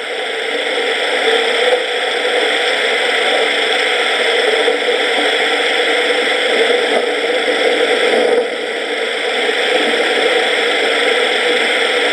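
Recorded thunderstorm sound effect played from a custom sound-effect box's voice chip through a speaker: a steady hiss of heavy rain with no low rumble, dipping briefly a little past the middle.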